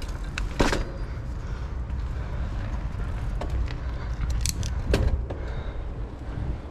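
Bicycle rolling over paving stones, with wind rumbling on the microphone and a few sharp clicks and rattles from the bike, the loudest about half a second in and around five seconds in.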